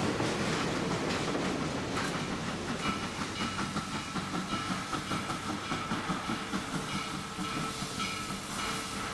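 Passenger cars rolling by with wheel clatter, then a steam locomotive, Western Maryland 734, a 1916 Baldwin 2-8-0 Consolidation, working slowly toward the station: exhaust chuffs about twice a second over steam hiss and a steady high tone.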